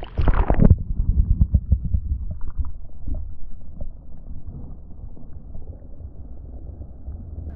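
A splash as a waterproof action camera is dipped into the estuary, then muffled underwater rumbling, knocking and sloshing heard through its housing.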